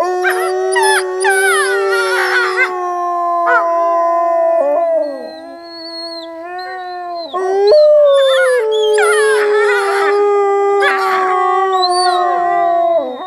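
Gray wolves howling together: a long, steady low howl with other wolves' higher, wavering howls layered over it. It eases off briefly around the middle, then a fresh howl comes in higher about eight seconds in and settles lower as the chorus carries on.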